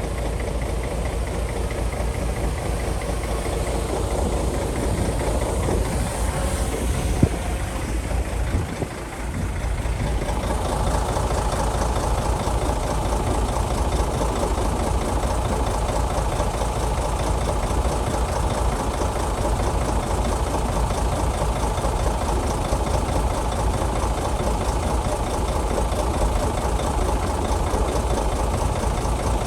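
Heavy earthmoving machine's diesel engine running steadily, with a sharp knock about seven seconds in and a brief dip around nine seconds, after which it runs on with a busier, higher-pitched note.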